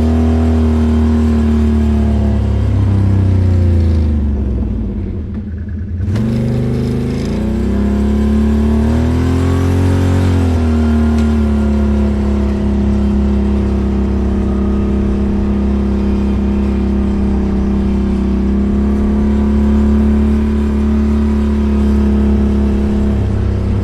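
ATV engine running under way. About four seconds in the throttle eases off and the pitch drops, then the engine picks up again and holds a steady pitch for the rest of the time.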